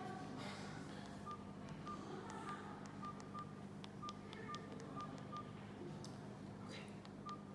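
Ioutdoor T2 rugged phone's keypad beeping: a string of about ten short, same-pitched beeps, one for each press of the navigation keys as the menu is scrolled, with faint clicks of the keys.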